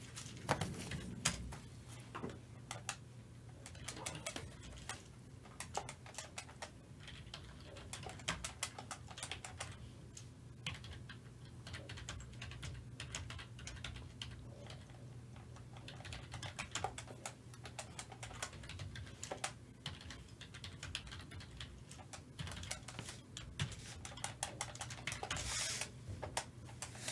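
Typing on a computer keyboard: irregular runs of light key clicks over a low steady electrical hum.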